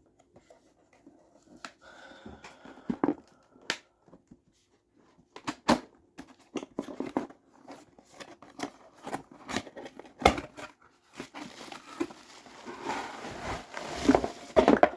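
Packaging being opened by hand: sharp clicks and knocks of the package being handled, with tearing and crinkling that grows busier in the last few seconds.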